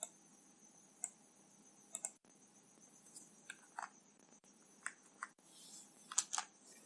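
Faint, scattered clicks of a computer mouse and keyboard, about ten separate clicks, a few in quick pairs.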